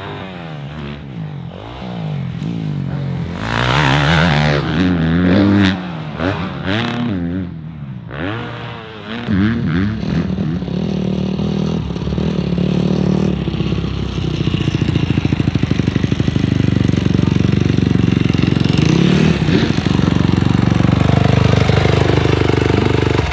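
Dirt bike engines running on a supercross track, revving up and down with the throttle and gear changes. From about ten seconds in, a steadier, louder engine sound takes over.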